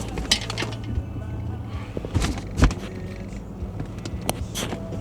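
Steady low hum of a car left running, with a handful of sharp clicks and knocks of handling scattered through it.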